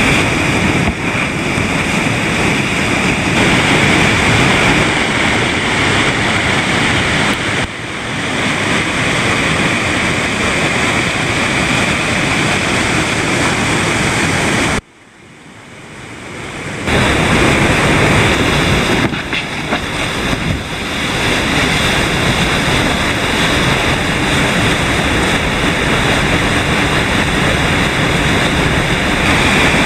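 Loud, steady rush of whitewater pouring over a waterfall and down a rocky creek, heard up close. About halfway through it cuts out suddenly, then swells back over a couple of seconds.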